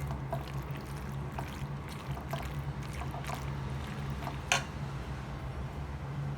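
Steady low hum with scattered light clicks and taps, a sharper tap about four and a half seconds in.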